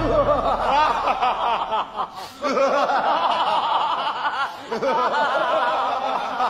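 A group of people laughing together, several voices overlapping, with a short lull about two seconds in.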